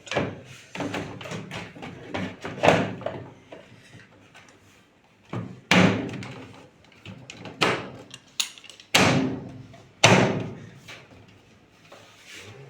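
A series of sharp knocks and bangs, each with a short ringing decay: a flurry in the first few seconds, a brief lull, then single loud bangs about a second apart.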